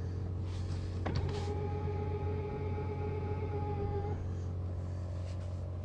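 Power-folding tow mirror motor on a 2017 Ford F-250 swinging the mirror back out: a click about a second in, then a steady motor whine for about three seconds that stops short. A steady low hum runs underneath.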